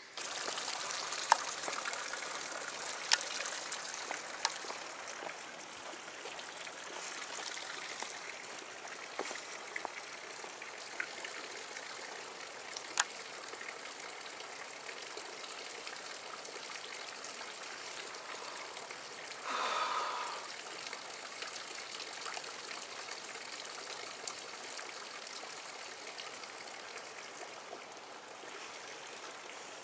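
Water trickling and flowing steadily, with a few sharp clicks in the first half and a brief louder sound about two-thirds of the way in.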